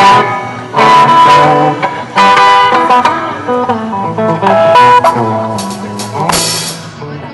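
Live band at a sound check: guitar chords with drums, played loud in short bursts that stop and start several times.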